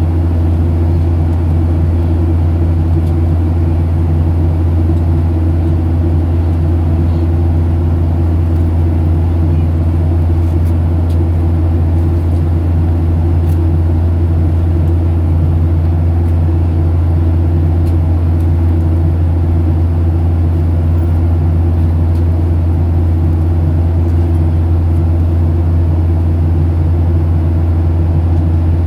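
Steady cabin drone of a Boeing 737-700 in flight, heard from a window seat by the wing: the CFM56-7B turbofan engines and the rush of air blend into an even, unchanging rumble with a strong low hum.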